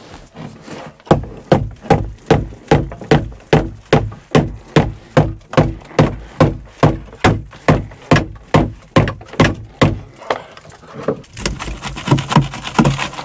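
Small hammer striking steadily, about two to three blows a second, knocking out the bolts that fasten a deck fitting on a wooden boat. Near the end the knocks come quicker and lighter.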